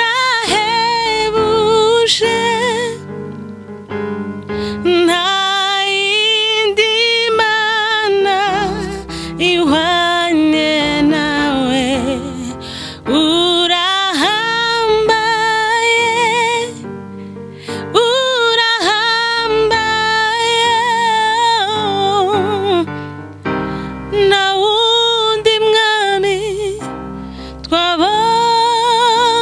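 A woman singing a slow Kinyarwanda worship song, holding long notes with vibrato, accompanying herself on an electronic keyboard.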